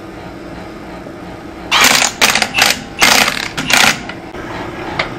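Cordless impact driver run in about five short bursts, spinning lug nuts onto a wheel's studs, starting a little under two seconds in. A single click near the end.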